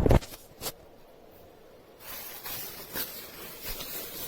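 Packaging being handled: a bump at the start and a click shortly after, then from about halfway a soft rustling and scraping of packing material with a few light ticks.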